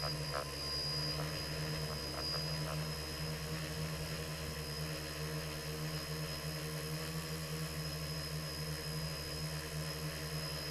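Quadcopter drone's electric motors and propellers running steadily as it climbs, heard through its own onboard camera: an even hum with a thin high whine.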